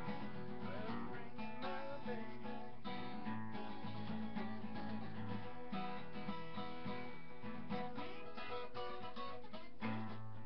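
Acoustic guitar playing an instrumental passage in rockabilly-blues style: picked notes over a steady bass line, with no singing.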